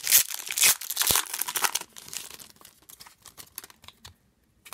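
Foil wrapper of a 2015-16 Upper Deck Ice hockey card pack crinkling and tearing as it is pulled open, loud for the first second and a half or so. After that come only faint rustles and small clicks as the cards are handled.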